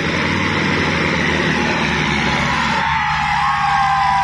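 Diesel tractor engines running steadily under heavy pulling load in a tractor tug-of-war, under a crowd shouting and cheering. From about three seconds in, high wavering tones rise above the din.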